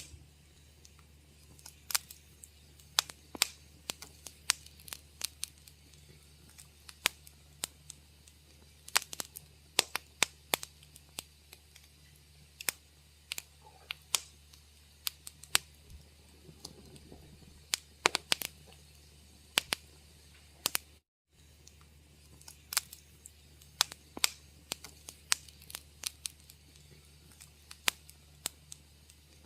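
Wood fire crackling in a fireplace: irregular sharp pops and snaps, several a second, over a faint steady low hum. The sound cuts out for an instant about two-thirds of the way through.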